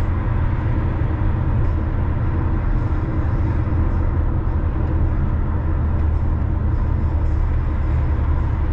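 Car driving at steady speed: an even, low rumble of engine and road noise.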